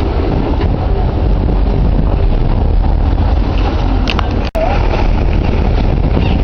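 Sportfishing boat's engines running steadily under way, a continuous low rumble with rushing wind and water noise; the sound cuts out for an instant about four and a half seconds in.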